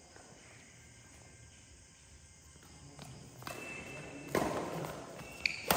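Badminton rally: two sharp racket strikes on the shuttlecock about a second and a half apart, echoing in a large hall, with brief high shoe squeaks on the court floor and footsteps. The first few seconds are fairly quiet.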